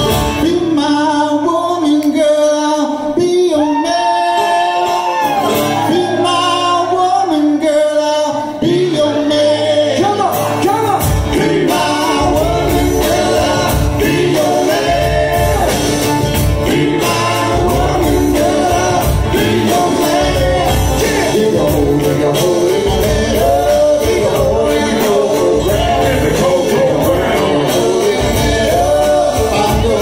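Live bluegrass–hip-hop band with several voices singing together over fiddle, acoustic guitar and banjo. About ten seconds in, a beat with bass comes in under the full band.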